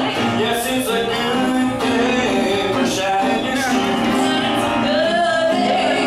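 A live stage song: singers with instrumental backing in an old-west saloon-show style.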